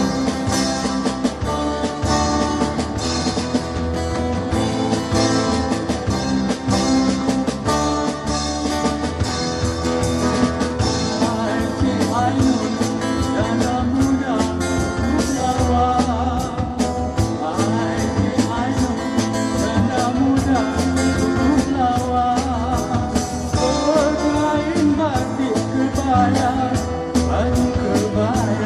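Live band playing a song: acoustic-electric guitar and a second guitar over a steady beat on a Yamaha drum kit. A man's singing voice comes in about twelve seconds in and carries on to the end.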